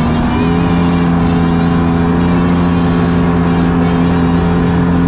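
Ski-Doo 550 snowmobile's two-stroke engine running under way, its pitch stepping up slightly about half a second in as the revs rise, with music playing over it.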